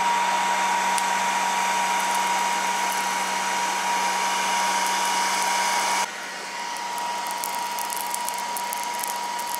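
Electric heat gun running steadily with a constant whine over its blowing air, warming a vinyl sticker to soften its adhesive. About six seconds in the sound drops abruptly to a quieter, thinner blowing.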